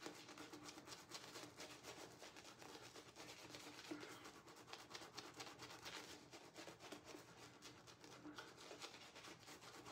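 Faint rubbing and swishing of a badger-hair shaving brush working soap lather over the face, many quick strokes following one another.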